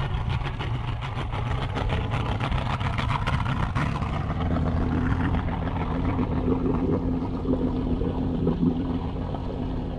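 Bass boat's outboard motor running, with a steady engine tone settling in about halfway through.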